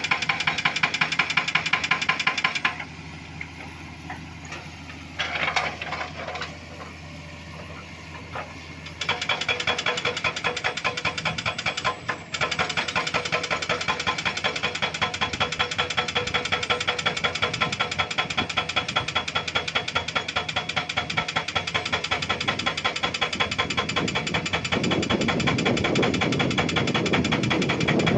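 Excavator-mounted hydraulic breaker hammering rock in rapid, evenly spaced blows. It stops for about six seconds soon after the start, leaving a quieter running sound, then resumes hammering steadily.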